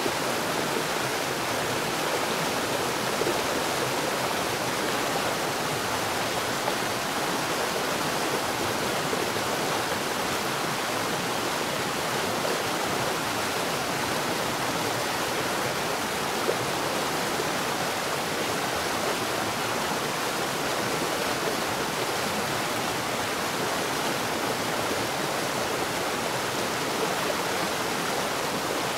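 Water falling at a rapid rate underground, a steady, even rushing that never lets up.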